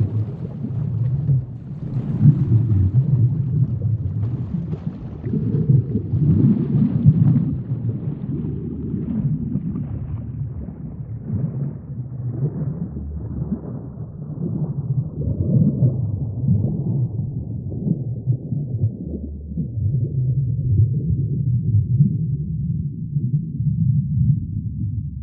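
A low, muffled rumble that swells and fades every few seconds, with faint crackling above it, like underwater ambience around a reef.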